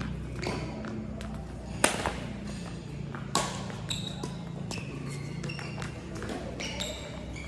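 Badminton rally: sharp cracks of rackets striking a shuttlecock, the loudest about two seconds in and another a second and a half later, with short high squeaks of shoes on the court mat. Background music plays underneath.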